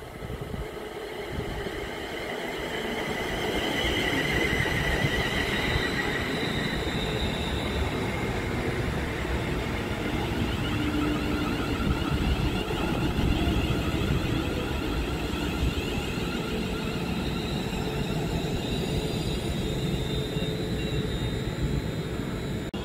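Train running along the track: the rumble of wheels on rail builds over the first few seconds and then holds steady, with a high whine over it.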